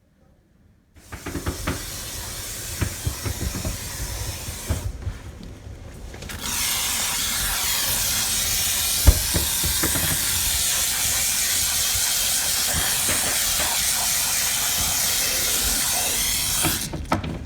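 Scattered knocks and bumps, then about six seconds in a loud, steady high hiss of pressurised spraying starts suddenly and runs for about ten seconds before stopping near the end.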